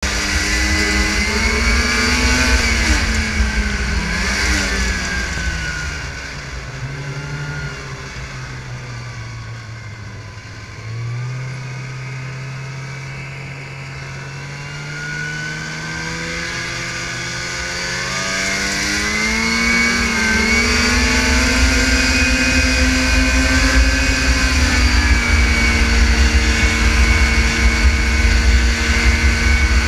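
Arctic Cat 440 snowmobile's two-stroke engine running under way: its pitch falls to a low steady note through the middle, then climbs again and holds high. A heavy low rumble lies under it while the engine note is high.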